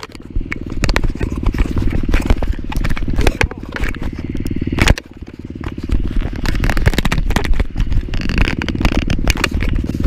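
Dirt bike engine idling steadily, with scrapes and knocks as a hand rubs against the helmet camera.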